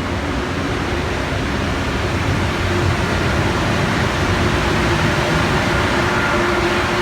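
Steady rushing noise with a faint low hum, the ambient din on the open deck of a cruise ship under way.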